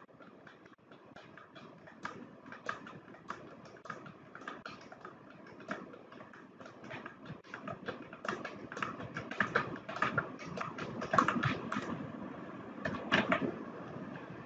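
Computer keyboard keys clicking in quick, irregular succession, louder in the second half: repeated keystrokes as spaces are deleted line after line in a text editor.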